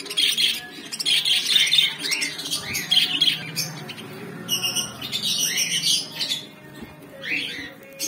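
A cage of budgerigars and lovebirds calling over one another in a dense run of high-pitched squawks and chirps.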